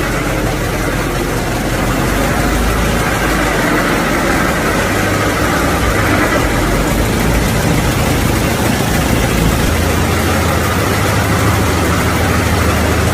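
Old car's engine running steadily, its low note shifting about ten seconds in.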